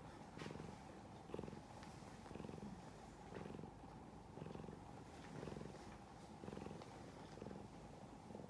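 Cavalier King Charles Spaniel snoring in its sleep, a steady rhythm of about one snore a second.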